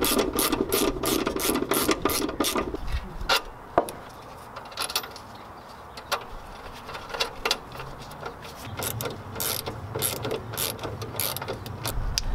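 Hand ratchet wrench clicking in quick runs as the rear suspension bolts are tightened, with shorter bursts and a few metal clinks later on.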